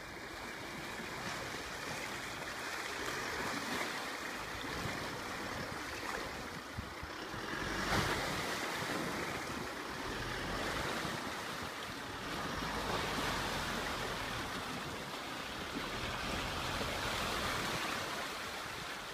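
Isuzu D-Max AT35 pickup wading slowly through a muddy pool: water sloshing and splashing around its tyres in a steady rush, with a louder surge about eight seconds in. Wind buffets the microphone.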